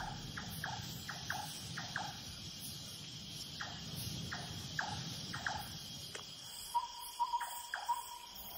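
A huge swarm of cave bats emerging at dusk: many short, falling squeaks at irregular intervals, over a steady high buzz of insects and a low rushing noise. Near the end the scene turns to night, and a quick series of short chirping calls starts.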